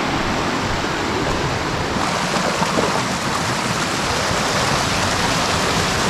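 Small mountain stream's running water rushing steadily.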